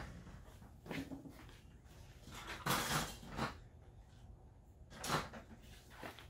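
Workshop handling noises: three short bumps and scrapes, the longest and loudest about three seconds in.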